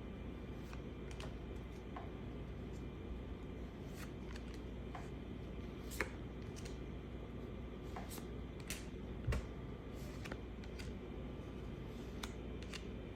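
Baseball trading cards being handled and flipped through, one card at a time: light scattered clicks and slides of card stock over a steady low hum. A soft knock stands out about nine seconds in.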